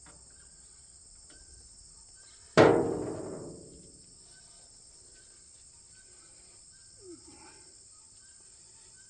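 A single loud clang of metal striking metal about two and a half seconds in, ringing out and fading over a second or so, over a steady background of insects buzzing and chirping.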